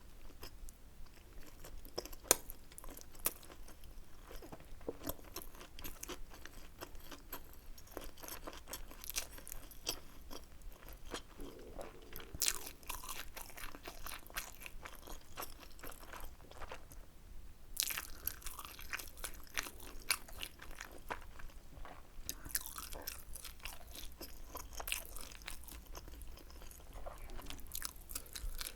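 A person chewing and biting tteokbokki close to the microphone: a dense run of small wet clicks and crunches, with a brief lull a little past halfway.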